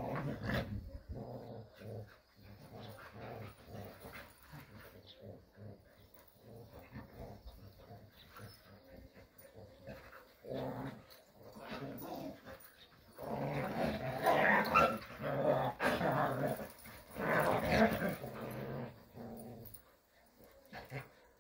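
Several Jindo dogs growling as they play-wrestle, in short bouts that come and go. The growls get louder and more intense for several seconds past the middle.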